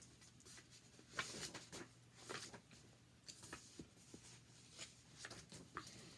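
Faint handling noises: scattered light clicks and short rustles over a steady low hum.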